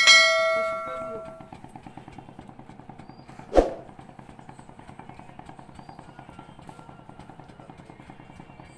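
A bright bell-like chime, the sound effect of a subscribe-button animation, rings out and dies away over about a second and a half. A short sharp knock comes about three and a half seconds in. Throughout, a steady mechanical throb pulses at several beats a second, like a small engine running.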